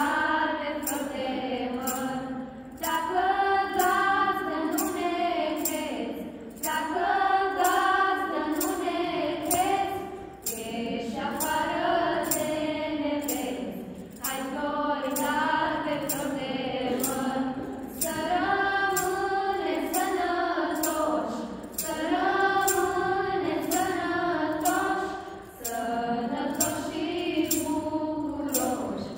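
A choir of mostly women's and girls' voices singing a Romanian Christmas carol (colindă) in phrases of a few seconds with short breaks between, over a steady jingling beat about twice a second.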